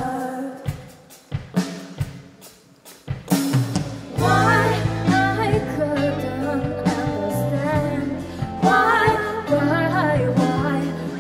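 Live pop song with female singing over backing music with drums and bass. The music drops to a quiet break with a few scattered drum hits, then swells back in after about three seconds, and the women's voices come in over the full beat.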